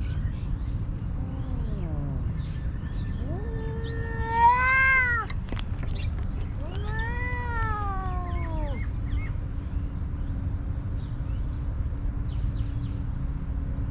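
Stray cat meowing: two long drawn-out meows, the first rising and then falling and the loudest, the second sliding down in pitch, with a fainter short meow about a second in and another beginning at the end. A steady low background noise runs underneath.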